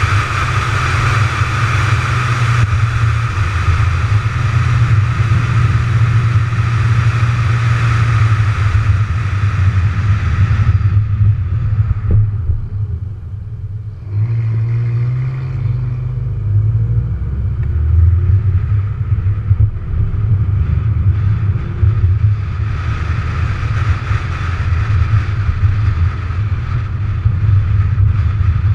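McLaren 570GT's twin-turbo V8 heard onboard with steady tyre and wind noise while cruising. The road noise falls away about a third of the way through as the car slows, the engine note climbs as it pulls away again, and the road noise builds back up near the end.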